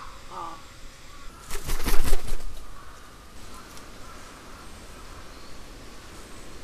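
A crow's faint short caw, then a burst of loud, rapid wing flaps lasting about a second.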